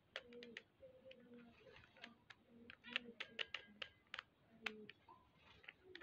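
Faint, irregular plastic clicks of a 3x3 Rubik's cube's layers being turned by hand.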